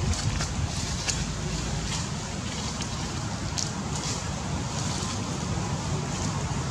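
Low, steady rumble of wind buffeting the microphone, with a few short clicks or rustles.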